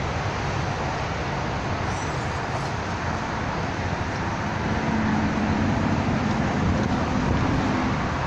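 Steady rumble of road traffic, growing louder about halfway through as a low steady hum joins it.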